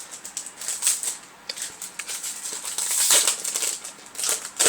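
Yu-Gi-Oh! trading cards and their foil booster-pack wrappers being handled: a run of short rustling and scraping strokes, loudest about three seconds in and again near the end.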